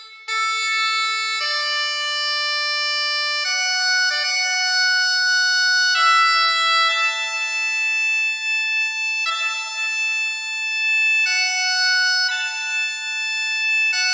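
Slow melody played on bagpipes: long held notes stepping up and down, with a short break about a quarter second in.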